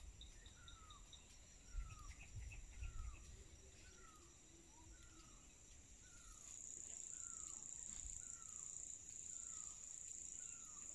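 Faint evening forest ambience: a steady high-pitched insect drone that gets louder about six seconds in, and a bird repeating a short falling note roughly once a second. A couple of low rumbles of wind or handling on the phone's microphone come a few seconds in.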